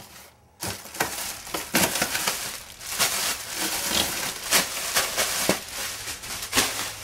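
Inflated plastic air-pillow packing crinkling and rustling as it is pulled out of a cardboard box, starting about half a second in, with many sharp crackles.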